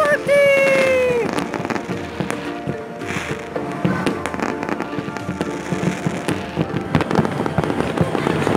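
Fireworks and firecrackers popping and crackling in many quick, irregular bangs, with music playing underneath. A held musical note falls away about a second in.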